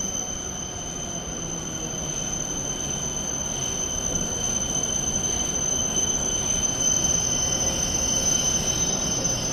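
Shinkansen train noise: a rumble that grows gradually louder, with a steady high-pitched whine over it.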